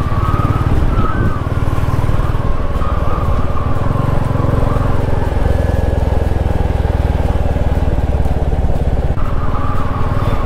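Royal Enfield motorcycle engine running while riding: a steady, loud, low engine note with rapid firing pulses.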